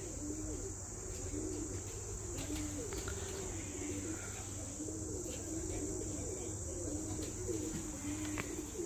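Pigeons cooing over and over, low and repetitive, over a steady high-pitched insect drone.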